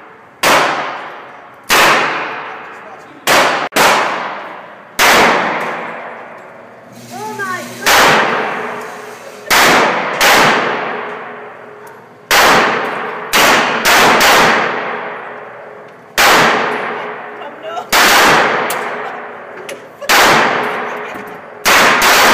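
Semi-automatic pistol shots at an indoor range, about twenty at an uneven pace, sometimes two or three in quick succession, each one loud and sharp with a long ringing echo off the concrete walls.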